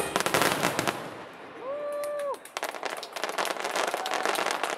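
Aerial fireworks crackling and popping in rapid, dense succession, thinning out briefly just before the middle and then picking up again. A short held whistle-like tone sounds near the middle.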